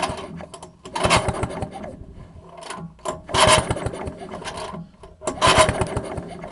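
Tecumseh engine of an Eska outboard cranked by its recoil starter rope, three pulls about two seconds apart, each a quick rasping whir of the rope and engine spinning over. The spark plug is out for a spark test and there is no fuel, so the engine turns freely without firing.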